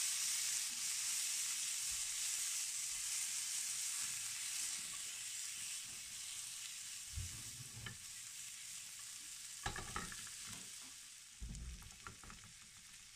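Potato gnocchi, frozen peas and butter sizzling in a hot frying pan as the butter melts, the hiss slowly fading. The pan is shaken on the hob, with a few short knocks in the second half.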